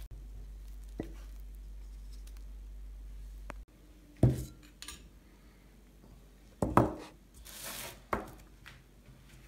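A china plate set down on a table and cutlery laid beside it: a few sharp knocks and clinks of crockery and metal. Before that, a steady low hum that stops suddenly about three and a half seconds in.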